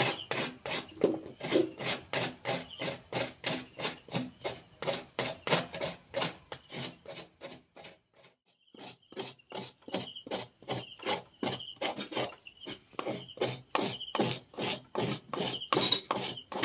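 Coconut half scraped against a grater's serrated blade in quick regular strokes, about two to three a second, with a brief break about eight seconds in. Crickets chirp steadily behind.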